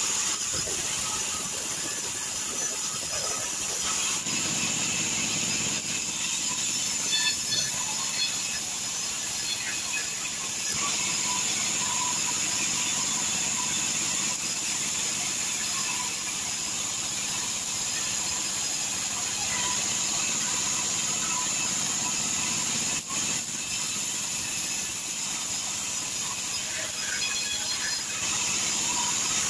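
Band sawmill running and cutting timber into boards: a steady high-pitched whine and hiss from the blade passing through the wood.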